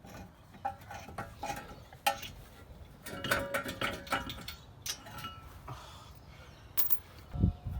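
Metal tools and brake parts clinking and knocking against each other in a series of short irregular strikes, some ringing briefly, as a car's front brake assembly is worked on.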